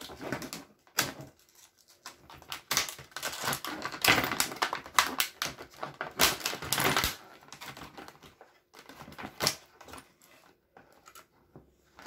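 Stiff clear plastic blister packaging crinkling and crackling as it is handled and pulled apart, in irregular spells that are loudest in the middle and thin out to a few scattered clicks near the end.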